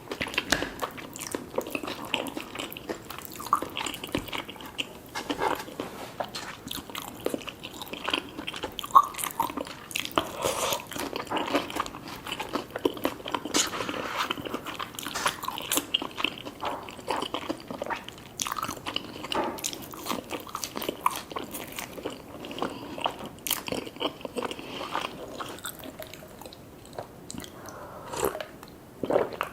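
A person chewing and biting into crispy fried food, with crunches all through and one sharper crunch about nine seconds in.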